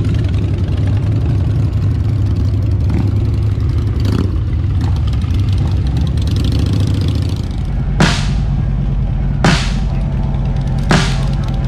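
Motorcycle engines rumbling steadily at low speed. From about two-thirds of the way in, three sharp, evenly spaced hits come about a second and a half apart as a music track starts.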